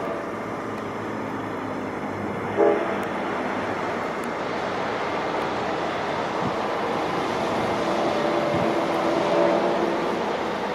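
Locomotive horn sounding a chord: a short blast about two and a half seconds in and a longer one from about seven and a half to ten seconds, over a steady rush of train noise.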